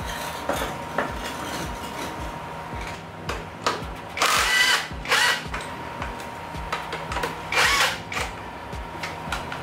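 LVDIAN cordless impact wrench with a 17 mm socket hammering in several short bursts, the longest about halfway through, loosening a motorcycle's front axle nut to take the front wheel off.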